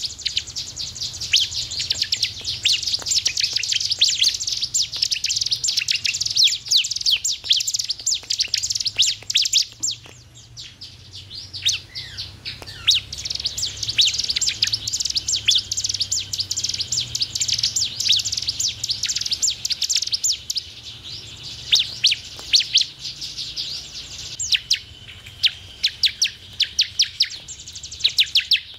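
Ciblek (prinia) song: a fast, dense run of high chirps and trills that dips into a quieter lull about a third of the way in, resumes, then turns to sparser, separate sharp chirps near the end. It is the kind of song played to prompt caged cibleks to start singing.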